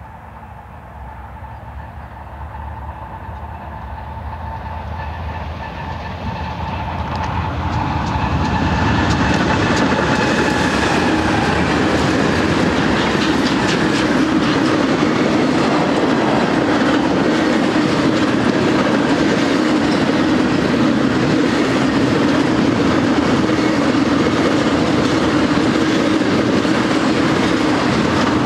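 A BNSF double-stack intermodal freight train led by a GE ES44C4 locomotive approaches, growing steadily louder over the first eight or nine seconds. Its container-laden well cars then roll past with a steady loud rumble and wheel clatter on the rails.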